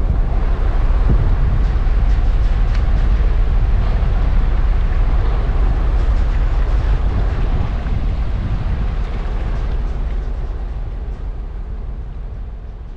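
Passing cargo ship on a canal: a steady, deep engine rumble with water and wind hiss, fading gradually over the last few seconds.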